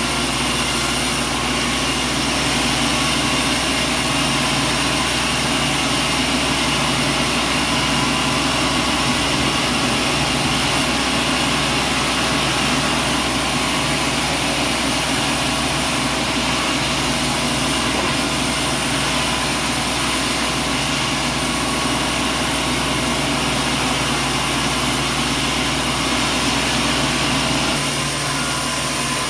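Industrial machinery running steadily: a loud, constant hum and whir with several steady tones, unchanging throughout.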